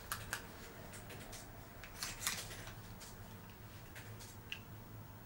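Faint clicks and light knocks of small plastic parts being handled and set down on a tabletop, over a low steady hum.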